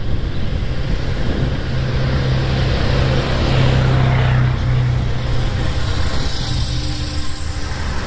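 Engine of a Duck Tours amphibious vehicle running close alongside: a steady low hum that swells to its loudest about halfway through and fades after, over street traffic noise and wind on the microphone.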